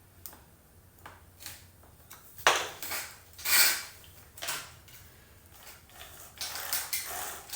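Small metal clinks and scrapes from hand work on a Stihl MS 201 C-M chainsaw, a tool snugging up the chain tensioner and bar, with a sharp knock about two and a half seconds in and a run of scraping near the end.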